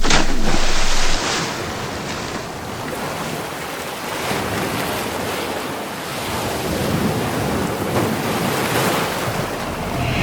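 Steady rushing outdoor noise, like wind or surf, louder for about the first second and then lower with slow swells.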